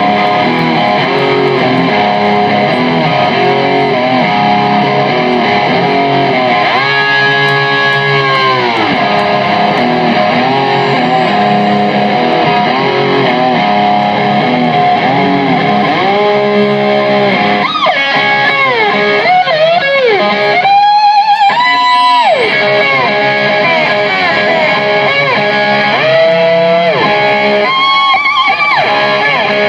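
Live rock band playing, led by an electric guitar whose long held notes slide and bend in pitch, with a bass guitar underneath.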